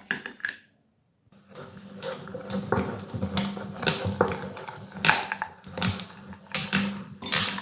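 Meat grinder running with a steady low hum while objects crackle and crunch through it in a dense run of clicks, with a few short high squeaks; it starts after a brief gap about a second in.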